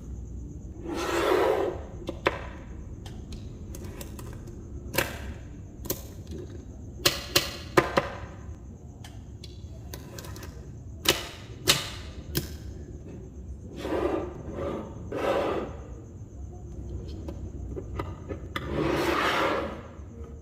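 Small magnetic balls snapping together with sharp clicks, singly and in quick runs of two or three, between longer rattling, rolling sounds of loose balls being handled.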